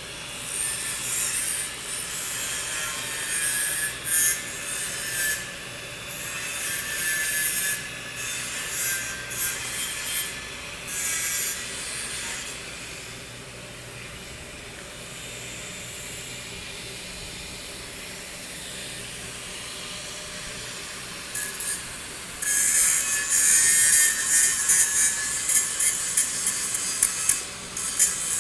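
Harsh scraping and crackling from metalwork on a steel pipe weld, coming in spells: busy at first, quieter through the middle, and loudest again near the end.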